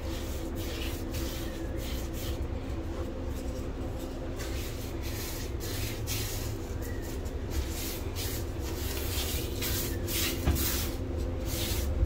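Paintbrush strokes over freshly set drywall topping compound at a ceiling corner: a run of short brushing swishes that come faster near the end. A steady low hum runs underneath.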